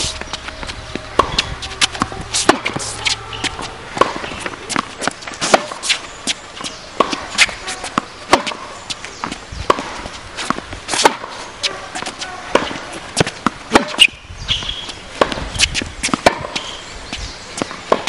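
Tennis balls struck by rackets and bouncing on a hard court during a baseline rally: an irregular run of sharp pops, several a second.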